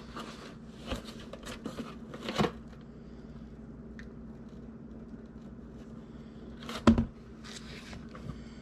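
Cardboard shipping box and plastic-wrapped hot dogs being handled and unpacked: scattered rustling and crinkling, a quieter pause, then a louder bump with rustling about seven seconds in.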